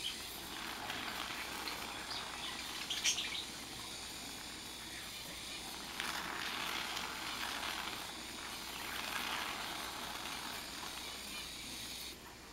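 Aerosol can of expanding foam hissing as foam spits out through its straw nozzle, in several swells of a couple of seconds each, with a sharp tick about three seconds in.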